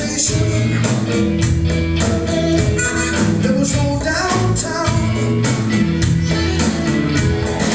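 Live rock band playing, with drums, electric bass and keyboard, and a man singing into a hand-held microphone, recorded from the audience.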